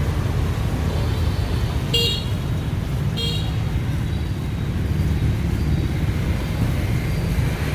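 Street traffic running steadily, with a vehicle horn tooting briefly twice, about two seconds in and again a second later.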